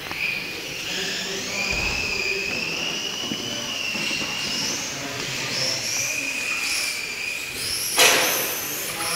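Electric motor and gears of a 1/12-scale Mardave V12 radio-controlled car whining, the pitch rising and falling as it speeds up and slows through the corners. A sharp knock about eight seconds in is the loudest sound.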